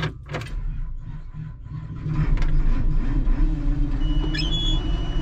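Cold farm-machine engine, jump-started with cables, turning over on the starter and then catching about two seconds in and settling into a steady run. A thin, steady high tone comes in near the end.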